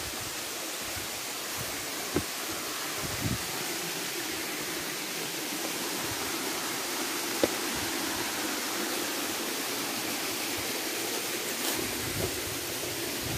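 Steady rush of a waterfall: an even hiss of falling water, with a few faint knocks.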